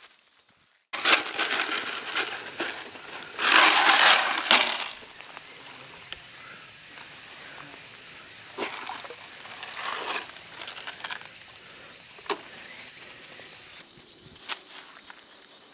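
Steady high-pitched insect buzzing, with a loud burst of rustling about four seconds in and a few soft knocks.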